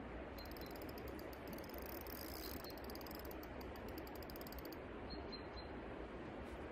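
Steady rush of a flowing river, with a rapid fine ticking from a spinning reel being wound in while a fish is played on the rod; the ticking starts about half a second in and stops about five seconds in.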